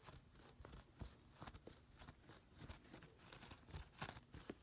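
Scissors cutting down a sock that has a plastic water bottle inside it: faint, irregular snips and crinkles.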